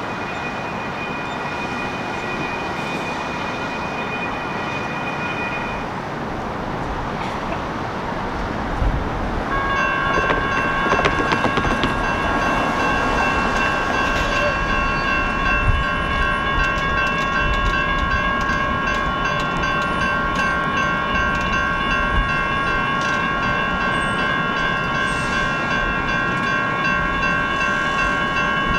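Railroad crossing signal bells start ringing about ten seconds in and keep ringing steadily, several bells together, over street noise, as the warning for an approaching light rail train. A few knocks come as they start, with the gates beginning to lower.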